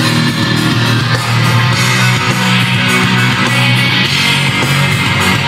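Loud rock music with guitar playing from a car stereo.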